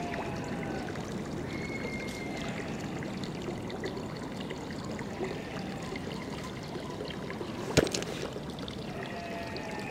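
Steady trickling and running of swimming-pool water, with one sharp click near the end.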